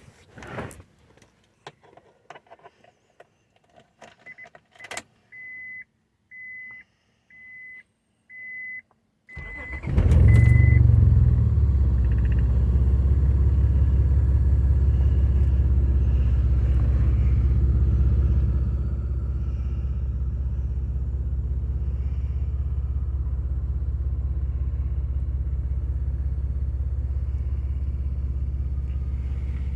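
A few clicks and a car's dashboard chime beeping about once a second, then the Acura TL's V6 engine starts about ten seconds in and runs, settling a little lower around eighteen seconds in. It is running on three cylinders because of bad fuel injectors.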